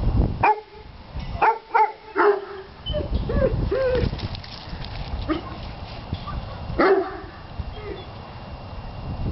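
Weimaraners barking: a quick run of sharp barks in the first couple of seconds, a few rising-and-falling yelps around three to four seconds in, and another bark about seven seconds in.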